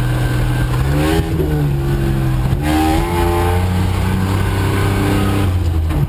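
A 1983 Ford Ranger's 2.8-litre V6 engine revving while it works through the woods, heard from inside the cab. Its pitch rises about a second in and again near three seconds, then holds steadier.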